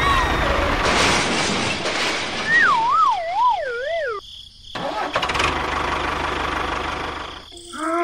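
Dubbed cartoon sound effects. A steady engine-like running noise gives way to a descending, wobbling whistle of about a second and a half, the 'dizzy' effect for a stunned character, which cuts off abruptly into a moment of silence. Engine-like noise then resumes.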